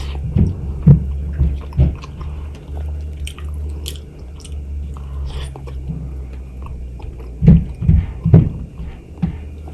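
Close-miked chewing and biting of juicy mango, wet mouth sounds in two bouts, the first at the start and the second about seven seconds in, over a steady low hum.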